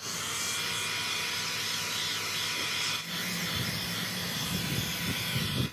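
Heat gun running: a steady hiss of blown air with a steady whine from its fan. It is making a final heating pass over freshly installed non-skid material. About halfway through there is a brief break, and a lower rumble joins after it.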